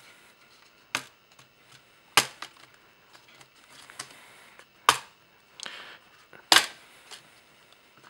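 The plastic latches of a Lenovo ThinkPad P50's bottom cover snapping loose one by one as the panel is pried off. About five sharp clicks come at irregular intervals, with faint rubbing of plastic between them.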